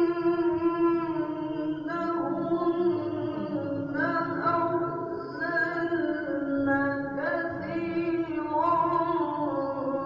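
A male qari reciting the Quran in melodic chanted style: one voice holding long, ornamented notes, moving to a new pitch every second or two.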